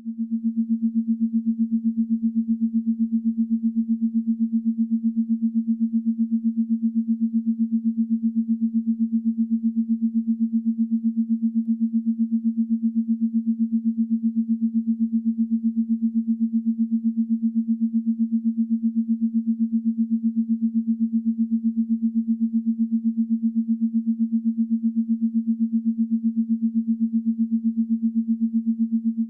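Steady low electronic drone on a single pitch, pulsing in rapid, even beats; an eerie 'space sound' given as the sound of the dwarf planet Quaoar.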